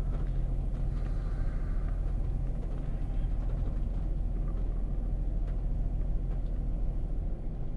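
Steady low rumble of a pickup truck's engine idling, heard from inside the cab.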